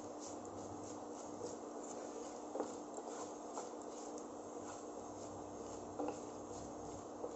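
Panch phoron seeds and dried red chillies spluttering in hot mustard oil: a faint crackle of many small pops. A wooden spatula scrapes the pan and knocks against it a couple of times.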